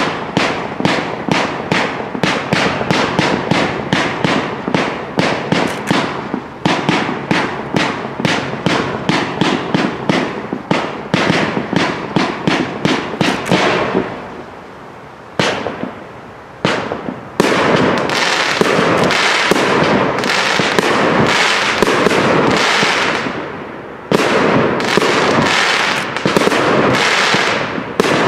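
Fireworks display: a fireworks battery fires a fast volley of shots, several sharp reports a second, that stops in a short lull about halfway through. It then gives way to a dense, continuous crackle of many shots and bursts, with a brief dip shortly before the end.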